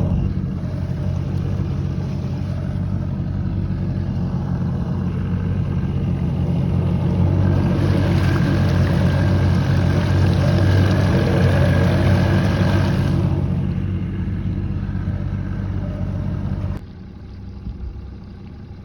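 Boat motor running under way across the lake, a steady low engine hum with rushing water and wind noise that swells for several seconds in the middle. The sound drops sharply about two seconds before the end.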